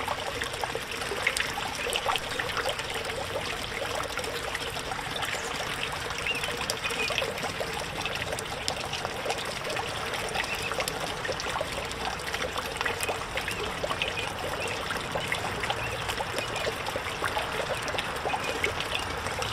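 Water from a small pond fountain and spitter splashing and trickling steadily into a backyard pond, with a dense patter of droplets.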